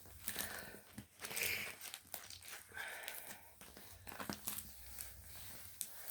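Plastic packaging of a diamond painting kit being handled, rustling and crinkling irregularly with a few light clicks, loudest about one and a half seconds in.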